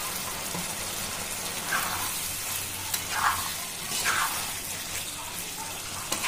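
Chickpeas in masala sizzling in a frying pan, with a spatula scraping and stirring through them about four times.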